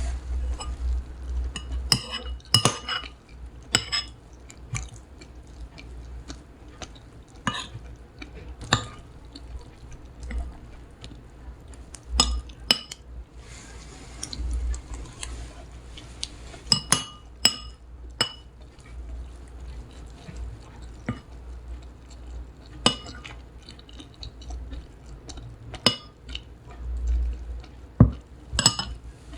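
Dishes and glassware clinking and knocking at irregular intervals: sharp clinks with a short ring, some in quick pairs, over a low rumble.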